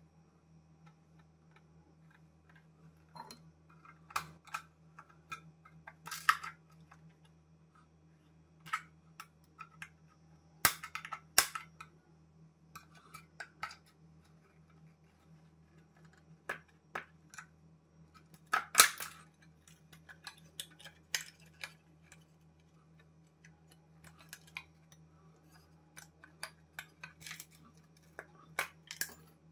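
Irregular small clicks, taps and clinks of a broken motorcycle headlamp being handled and knocked, shaking packed-in soil and bits of glass out onto a stone worktop. A few sharper knocks stand out, the loudest about 19 seconds in, over a low steady hum.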